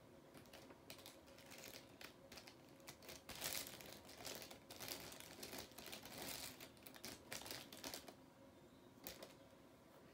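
Faint handling sounds: irregular soft scratches, rustles and light clicks, with a few louder strokes about a third of the way in and again past the middle.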